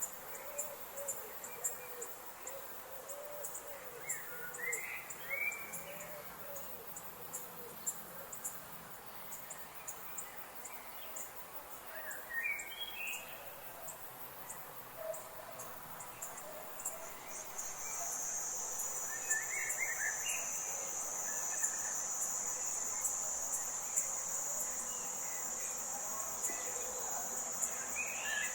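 Forest ambience of insects: a fast, high ticking chorus all through, joined about two-thirds of the way in by a steady high buzz that makes the scene louder. Short bird chirps come every several seconds, about four times.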